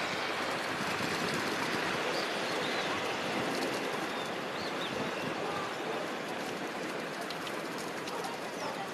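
Rain falling steadily as a dense, even hiss, with a few faint sharp ticks in the second half.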